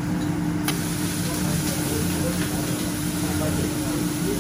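Restaurant ambience: a steady low mechanical hum under indistinct background chatter, with one sharp click under a second in.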